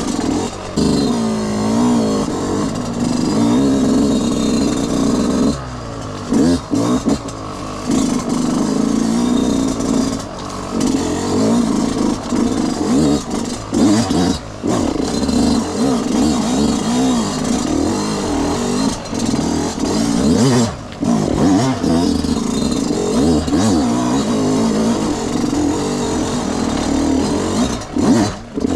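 Yamaha YZ125 two-stroke single-cylinder motocross engine being ridden hard, revs rising and falling over and over. The sound drops away briefly several times as the throttle comes off.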